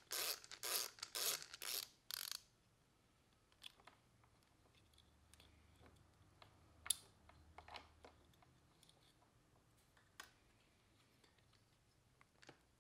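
A hand ratchet wrench worked in quick strokes, about three a second, for the first two seconds while loosening a fastener on a dirt-bike engine case. After that, only faint scattered tool clicks, with one sharper click about seven seconds in.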